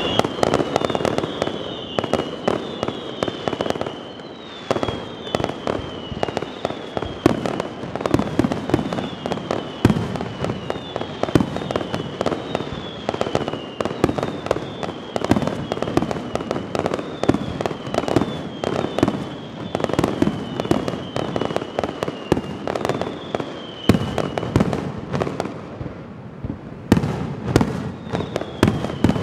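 Fireworks display: a dense, unbroken string of bangs and crackling from bursting shells and rising fountains. A high falling chirp repeats about once a second through most of it.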